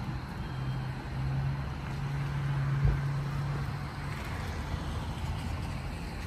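An engine or motor running steadily with a low hum, over an even rushing noise, and a single thump about three seconds in.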